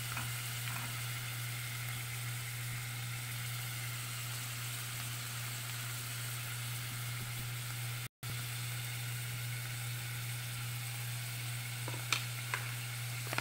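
Boiled pork strips sizzling steadily in a pot as the last of their cooking water boils off, just before oil goes in to sauté them. A couple of faint clicks near the end.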